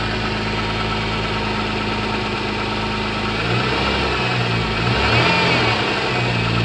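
MG ZS 180's 2.5-litre V6 engine running at idle, the engine its owner reports as knocking. It is lightly revved twice in the second half, the pitch rising and falling back each time.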